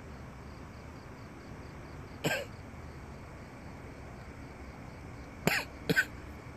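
A man coughs three times: once, then a quick pair about three seconds later. They are the coughs of someone feeling unwell. Faint insect chirping runs steadily underneath.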